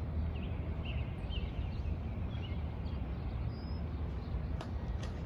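Steady low rumble of outdoor background noise, with a few faint, short, high bird chirps about a second in and again past the middle.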